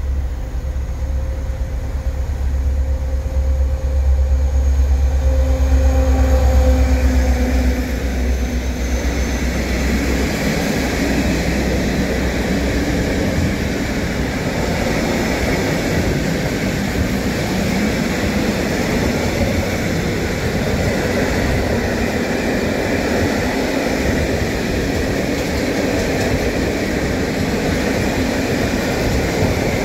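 Rail Polska M62M-004 diesel locomotive approaching and passing with a deep, steady engine rumble, loudest about five seconds in. After about eight to ten seconds the engine note gives way to the steady rolling noise of a long train of empty open coal wagons going past.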